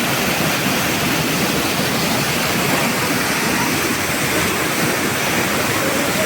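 Waterfall: a steady, loud rush of falling water close by.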